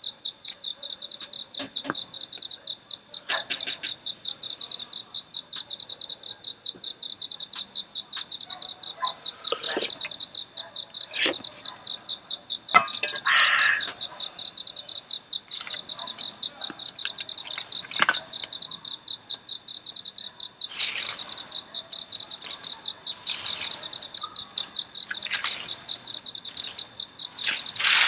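Insects chirping in a steady chorus, a fast, even pulsing trill that never stops, with occasional clicks, knocks and short rustles over it.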